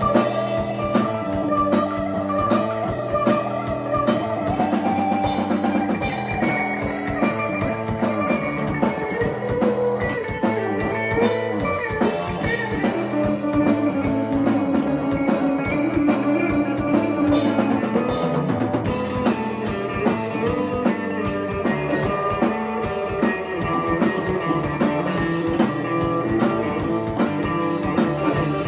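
Live psychedelic rock band jamming instrumentally: electric guitar playing lines with sliding, bending notes over a drum kit keeping a steady beat.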